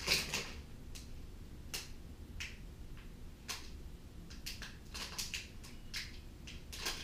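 Small plastic bag of M5x16r screws handled in the fingers: irregular crinkles and light clicks of the bag and the screws inside it.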